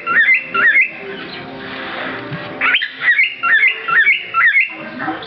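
Male cockatiel singing: two phrases of quick, repeated whistled notes that swoop up and down, the first ending about a second in and the second starting near the middle and running almost to the end.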